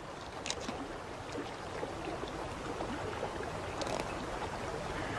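Shallow river water running steadily over gravel, with a few faint clicks over it.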